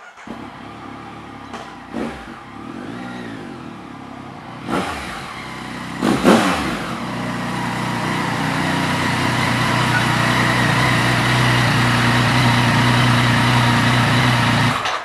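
Yamaha FZ-09 inline-three motorcycle engine revving, with a sharp loud rev about six seconds in, then running at a steady, rising drone that cuts off abruptly.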